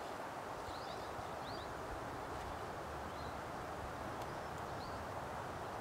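Steady soft hiss of breeze through a Canary pine forest, with a few faint, short rising bird chirps scattered through it.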